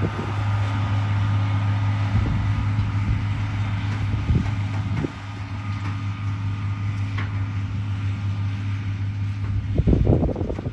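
Farm tractor engine running steadily as it tows a flatbed hay wagon, a low even hum that drops slightly about halfway through. Wind buffets the microphone with low rumbles at the start and again near the end.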